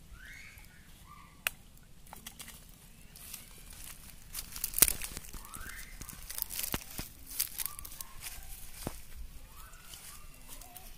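A freshly caught fish flopping and thrashing on grass and dry leaves: an irregular run of sharp slaps and rustles, the loudest about five seconds in.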